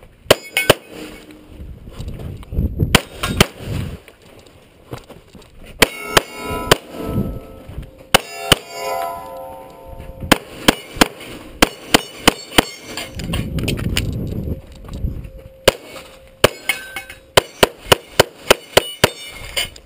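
Semi-automatic pistol shots fired in pairs and quick strings, with pauses between strings and a fast run of about a dozen shots near the end. Steel targets ring after some hits.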